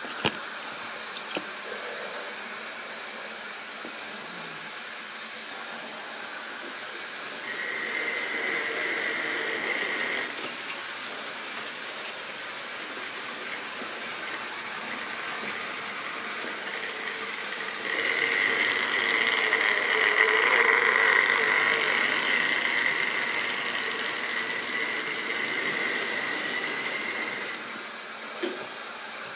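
Model railway locomotive's small electric motor whining with wheels running on the track, heard twice: briefly about eight seconds in, then louder for about ten seconds in the second half. A steady hiss underneath, and a few light clicks at the start and one near the end.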